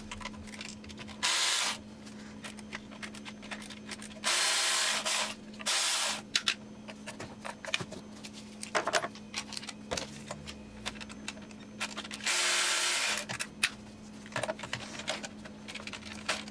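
Cordless ratchet spinning E12 Torx bolts out of the oil cooler in four short runs, the longest about a second. Small clicks of the socket and bolts being handled come between the runs.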